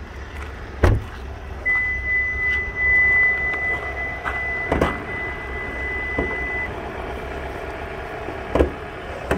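A car door, on a 2015 Hyundai Sonata, shuts with a thump about a second in. A steady high beep then holds for about five seconds. A few lighter knocks follow over a low steady rumble.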